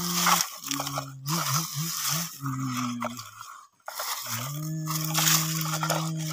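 Dry leaves and twigs crunching and scraping under a plastic toy bulldozer blade pushed by hand, over a hummed engine noise made by mouth. The hum wavers in pitch for a couple of seconds, stops briefly about halfway through, then resumes steady.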